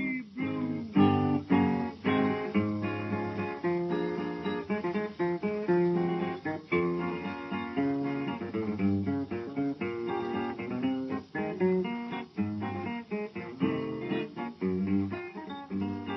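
Music: a plucked guitar tune of quick, separate notes.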